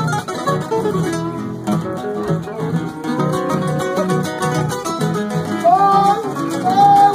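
Several nylon-string acoustic guitars playing a gato cuyano, an Argentine folk piece, together: a steady rhythmic accompaniment under plucked melody lines.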